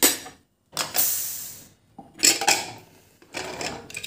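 Aluminium pressure cooker being opened: a short hiss of leftover steam let out by hand, fading over about a second, then metal clanking and scraping as the lid is worked loose and lifted off.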